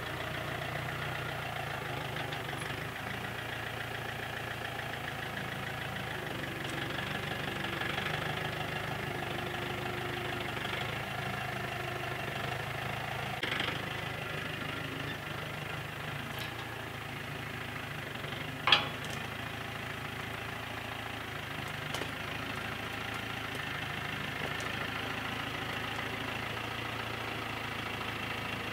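John Deere compact tractor's engine running steadily while its front loader works, with one sharp clank about two-thirds of the way through.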